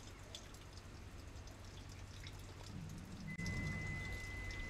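A single long, steady high beep from the 2015 Subaru Outback's keyless-access signal, starting about three seconds in. It confirms that the key fob has been put into sleep mode: the key is locked out and the car no longer detects it.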